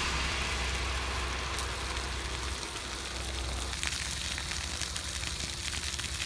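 Garden hose spraying a thin jet of water onto a burning grass fire: a steady hiss of spray and fire, with scattered faint crackles.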